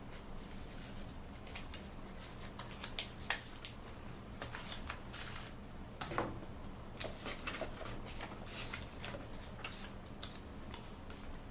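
Paper manuals and box packaging being handled: light rustling with scattered clicks and taps, a sharper tap about three seconds in, over a faint steady low hum.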